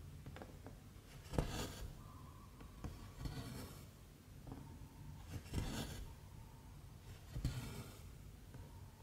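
Embroidery thread being drawn through stamped 11-count cross-stitch fabric, four stitches: each one a short hissing swish that starts with a small tick, about two seconds apart.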